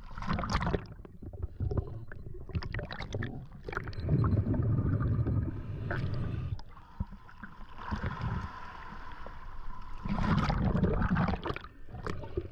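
Water sloshing and splashing around a swimming diver, with underwater bubbling and rushing in uneven surges, broken by sharp clicks and pops.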